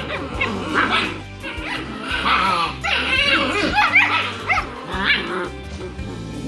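A litter of six-week-old German Shepherd puppies making many short, high-pitched calls one after another as they play, over background music.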